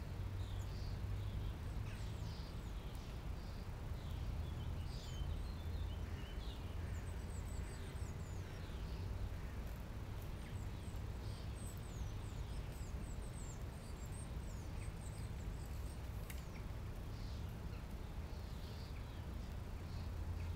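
Small birds chirping and singing at intervals, with a run of quick high chirps around the middle, over a steady low rumble.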